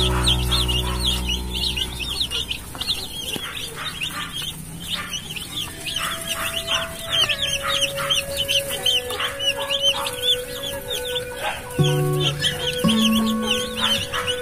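Broiler chicks peeping in a constant chorus of short, high calls, several a second, over background music.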